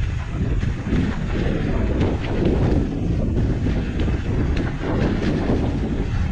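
Wind rushing over the microphone during a mountain-bike trail ride, with scattered clicks and rattles from the bike over rough ground.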